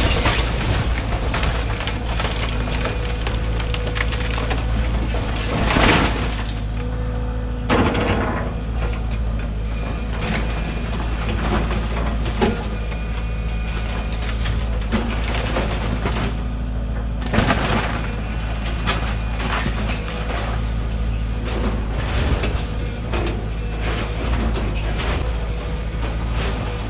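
An excavator's diesel engine runs steadily while its bucket and thumb tear apart a small wooden, sheet-metal-clad outbuilding. Wood cracks and splinters and the structure crunches, with louder crashes near the start and about six, eight and seventeen seconds in.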